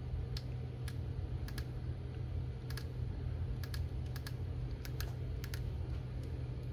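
Flashlight switch being clicked repeatedly: about a dozen sharp clicks at irregular intervals, some in quick pairs, over a steady low hum.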